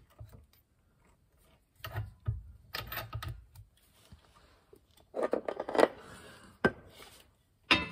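Scraping and rubbing of metal parts being worked by hand as the gear selector rod and its new oil seal are pushed home into the back of a classic Mini gearbox, in two spells, then a sharp click late on.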